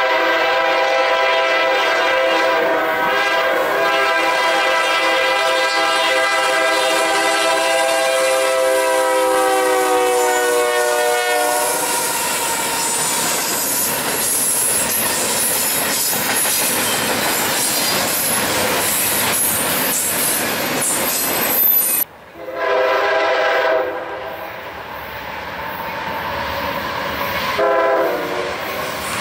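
A Norfolk Southern freight led by GE Dash 9-40CW diesel locomotives sounds a long multi-note air horn as it approaches; the chord slides down in pitch as the locomotive passes, then the locomotives and freight cars run by with wheel clickety-clack. After a cut, an Amtrak GE P42DC locomotive sounds two shorter horn blasts as it approaches.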